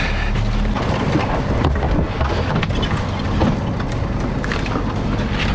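A fishing boat's engine running with a steady low hum, with scattered knocks and clicks of gear being handled on deck.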